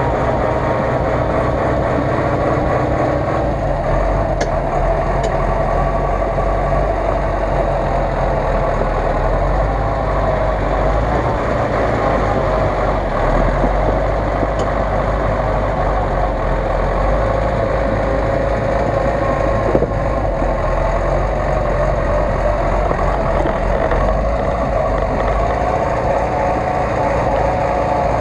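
GAZ-66 army truck's engine running steadily, with a deep rumble, while the truck sits stuck in icy mud. A single short knock is heard about twenty seconds in.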